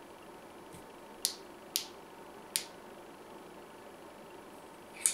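Push-button switch of a Bell + Howell Taclight-style LED flashlight clicked repeatedly to cycle through its light modes (strobe, SOS): four sharp clicks, three in quick succession in the first half and one near the end, with a fainter click before them.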